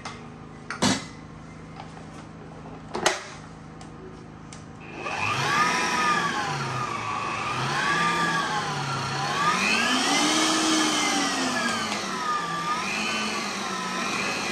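Two sharp knocks in the first few seconds, then an electric stand mixer switched on about five seconds in, its motor whining with a pitch that wavers slowly up and down as it mixes the first addition of flour into cake batter.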